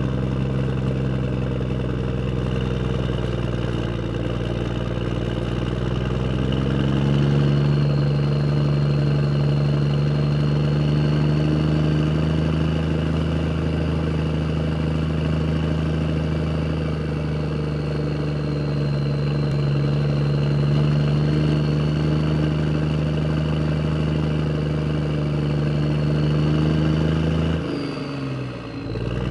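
Vehicle engine running steadily, rising in pitch and loudness about seven seconds in and holding a higher, even speed. Near the end the engine note drops briefly and then picks up again.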